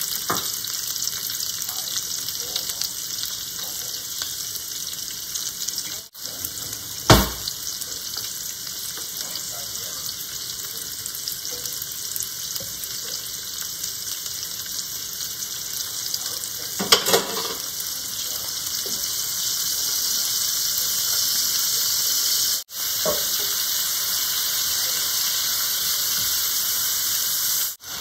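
Sliced onions sizzling in hot oil in a nonstick pot, a steady frying hiss that grows a little louder past the two-thirds mark. Two sharp knocks, about seven and seventeen seconds in.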